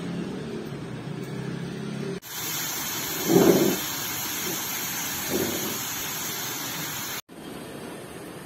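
Self-heating meal's heating pack reacting in water: a steady fizzing hiss, brighter and louder between about two and seven seconds in, with two short low bumps.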